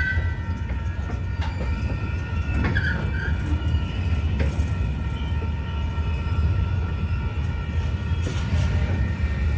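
Slow freight train of coil cars rolling by with a steady low rumble, a thin steady squeal from the wheels and a few scattered clanks.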